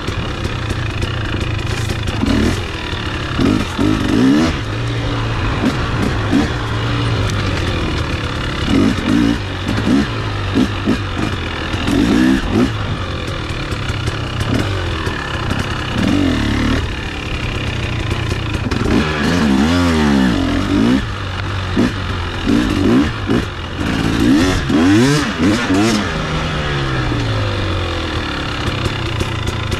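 Two-stroke KTM XC dirt bike on a trail ride, its engine revving up and down constantly as the throttle is opened and rolled off, with frequent sharp knocks and clatter.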